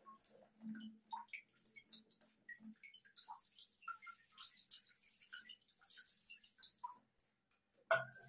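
Water from a hand shower splashing into a plastic bucket, with scattered drips and small clicks. Near the end comes a louder knock as the handset is set into its wall holder.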